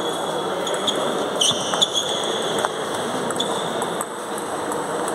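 Table tennis balls clicking off bats and tables, irregular sharp ticks, some with a brief high ring, over the steady background noise of a busy hall with several tables in play.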